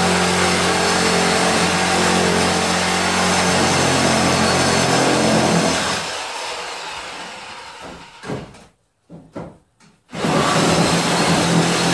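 Reciprocating saw running as it cuts through wall framing, dying away about six seconds in; after a short pause with a few brief knocks it starts cutting again near the end.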